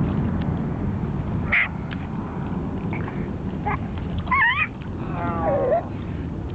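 Miniature pinscher whining: a short warbling whine about four seconds in, then a longer whine that falls in pitch, over a steady low rush.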